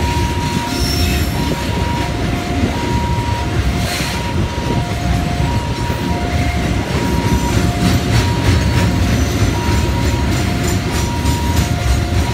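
Freight train wagons rolling past with a steady rumble of wheels on the rails. Over it, a level-crossing warning alarm repeats a two-note high-low tone, alternating steadily.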